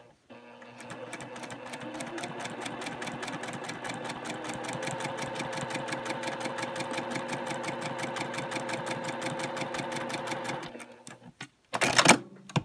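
Domestic sewing machine stitching a curved quilt seam with rapid, even needle strokes. It picks up speed over the first couple of seconds, runs steadily, and stops a little over ten seconds in. A brief loud noise follows near the end.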